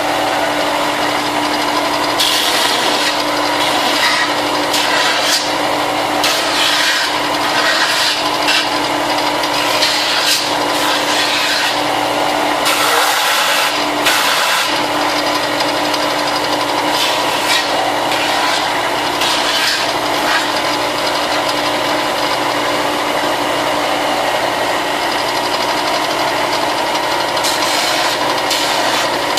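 Electric sander running steadily while the plastic armor pieces are pressed against it. A gritty, rasping sanding noise swells each time a piece is worked against the abrasive and eases in between.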